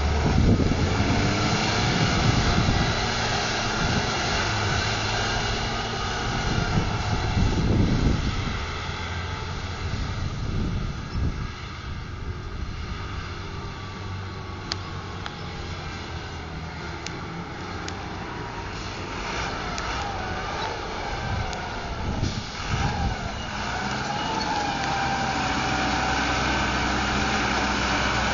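Diesel farm tractors pulling forage wagons driving past: a Case Puma's engine is loud for the first several seconds as it pulls away, then fades. Quieter, more distant engine noise follows, and a JCB Fastrac's engine grows louder near the end as it comes close.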